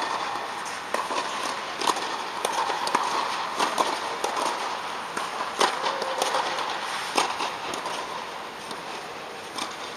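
Tennis balls struck by rackets and bouncing on the court, sharp pops at irregular intervals, inside an inflatable tennis dome.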